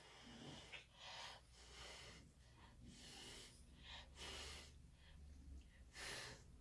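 Faint short puffs of a person's breath, several of them spaced about a second apart.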